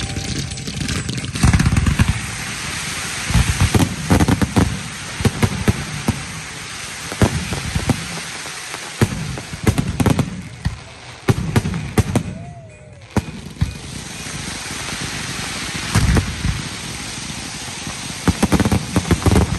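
Fireworks finale barrage: clusters of aerial shell booms over a constant crackling of glitter and crackle effects, with a brief lull about two-thirds of the way through.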